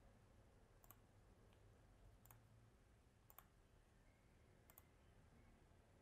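Four faint computer mouse clicks about a second apart over near-silent room tone.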